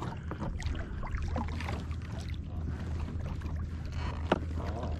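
Water sloshing and lapping against a plastic fishing kayak's hull, over a low steady rumble, with faint small ticks and one sharper tap about four seconds in.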